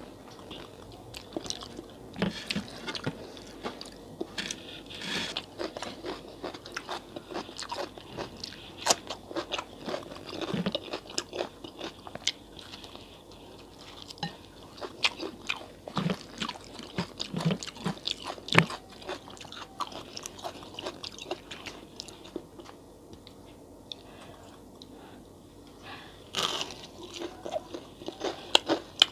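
Close-miked crunching and chewing of crisp fried pakoras, with irregular sharp crunches from bites, a quieter few seconds past the middle, and a loud crunch near the end.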